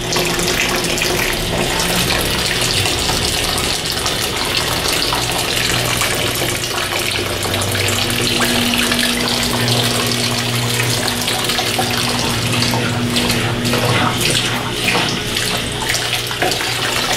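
Washing machine drain water pouring out in a steady, loud gushing stream, with a low steady hum underneath.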